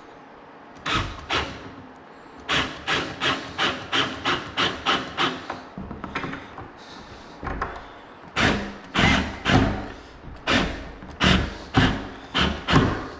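Power drill driving a fastener into the particleboard of an IKEA cabinet, worked in short repeated pulses about three a second, in two runs with a pause near the middle.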